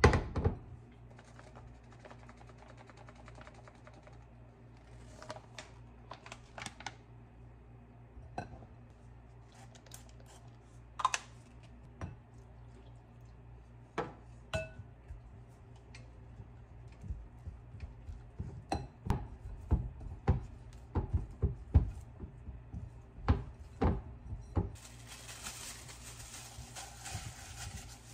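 A glass mixing bowl knocks down onto a countertop, followed by scattered clinks and taps of a wooden spoon against the glass as flour and water are stirred into a dough, the knocks coming thicker in the second half. Near the end, plastic wrap rustles steadily.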